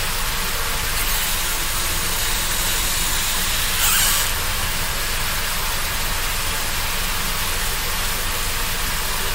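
Tap water running steadily, filling a bath, with a brief louder rush about four seconds in.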